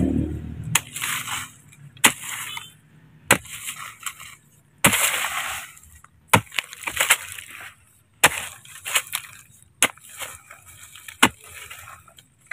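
A shovel chopping into hard soil: about nine sharp strikes, one every second and a half or so, each followed by a short scrape of dirt being lifted and tossed.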